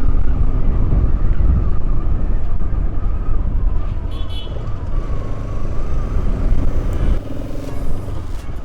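Motorcycle on the move, its engine running under a heavy low rumble of wind on the microphone. The rumble eases about seven seconds in.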